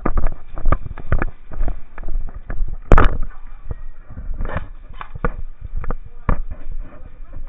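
A run of irregular knocks and clicks, with one sharp, louder crack about three seconds in.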